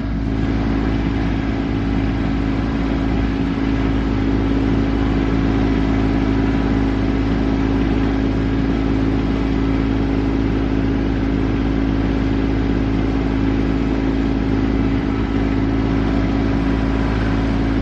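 Diesel tractor engine running steadily at a constant speed under working load, with no change in pitch.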